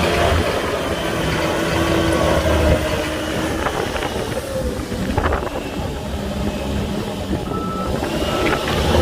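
Heavy diesel engines of earthmoving machines running, with a reversing alarm beeping a few times near the end.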